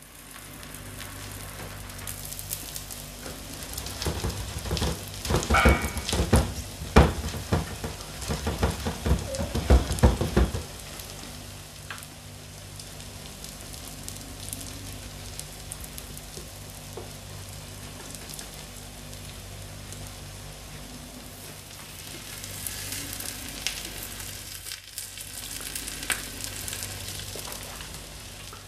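Potato-and-egg tortilla sizzling in oil in a frying pan over low heat. From about four to ten seconds in, loud knocks and scrapes of a utensil against the pan break in, then the steady sizzle carries on, crackling a little more near the end.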